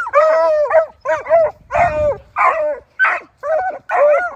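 A pack of beagle hounds yipping and barking in excitement, worked up over game. The short, arching, high cries come quickly, about two a second, and several dogs overlap.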